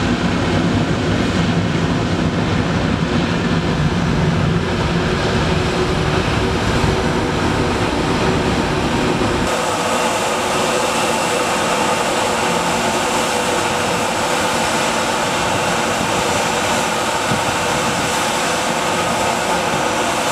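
Jet airliner engine noise in two shots. For the first half a Lufthansa Cargo MD-11 freighter's engines run with a heavy low rumble. After a sudden change about halfway through, a distant airliner takes off and climbs, its jet noise thinner and hissier, with a steady hum running under it.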